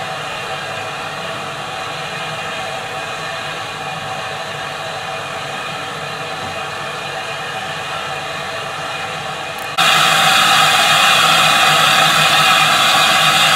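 Steady steam hiss from a standing steam locomotive. About ten seconds in, a much louder hiss starts suddenly: steam escaping from the front of NCB No.19, a saddle tank steam locomotive.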